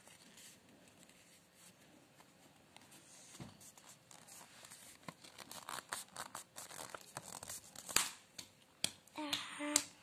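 A sheet of origami paper being handled and folded by hand: rustling and crinkling, with sharp crackles and flicks of the paper that grow busier after about four seconds.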